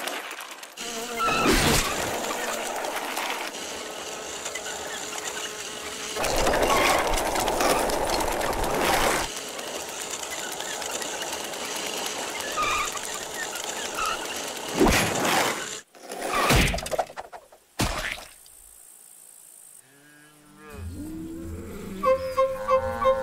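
Cartoon sound effects of tiny speeding vehicles: a steady rush of road noise broken by several loud whooshes as they race past. Near the end comes a sudden sharp hit, then a short lull. Then wavering orchestral music begins, with a pulsing beat.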